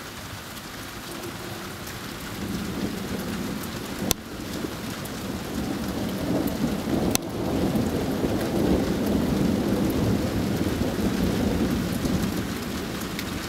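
Steady rain falling, with a long low roll of thunder that builds from about two seconds in and is loudest in the second half. Two sharp clicks about four and seven seconds in.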